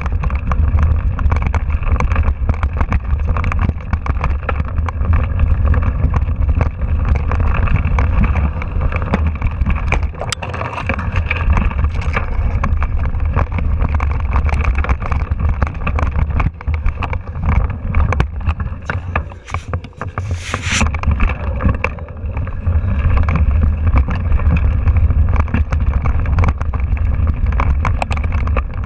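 Mountain bike rattling and jolting over a rough dirt singletrack, heard from a handlebar-mounted camera: a continuous jumble of small knocks and clatter over a heavy low rumble of wind buffeting the microphone. A brief hiss cuts in about twenty seconds in.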